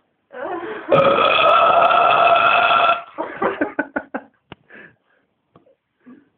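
A man's long, loud burp held at a steady pitch for about two seconds, then breaking up into a string of short choppy sounds.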